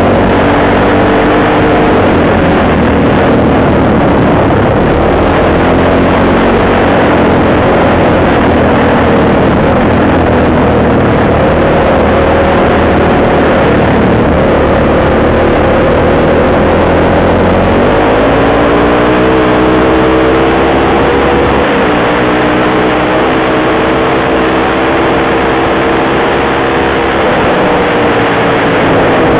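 Engine of an off-road vehicle being ridden, its pitch rising and falling with the throttle and climbing noticeably about two-thirds of the way through, over a steady rushing noise.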